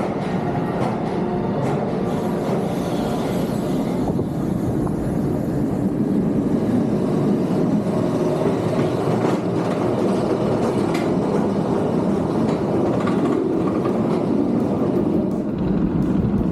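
A train rolling along its track, with a steady rumble and faint wheel clatter.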